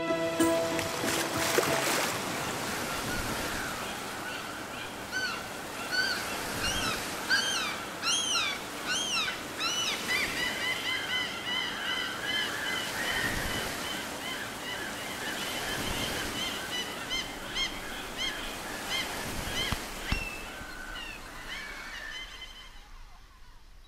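Birds calling in many short, high chirps and rising-and-falling whistles over a steady wash of gentle surf, fading out near the end.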